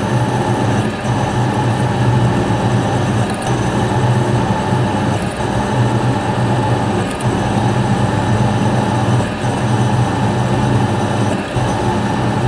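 A metalworking machine running steadily under load with a loud, even hum, marked by a brief regular dip about every two seconds.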